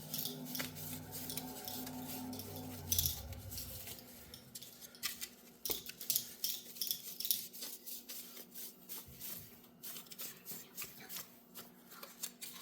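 Microfiber rag wiping dust build-up off a graphics card's plastic fan and shroud: faint rubbing with many small clicks and scrapes of plastic. A low steady hum of several pitches runs under the first three or four seconds and then stops.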